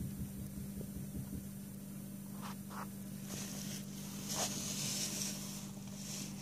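Bathwater around a fizzing bath bomb, over a steady low hum; from about halfway through, several short hissing swishes of water as a hand stirs it.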